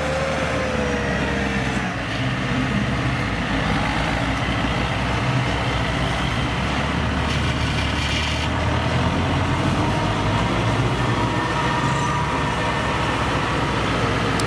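Engines of two tracked rice-hauling carriers, loaded with sacks of harvested rice, running steadily as they drive past over the stubble.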